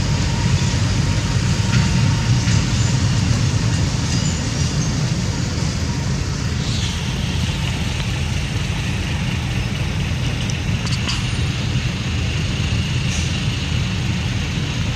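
Steady low rumbling noise, with a few faint high chirps.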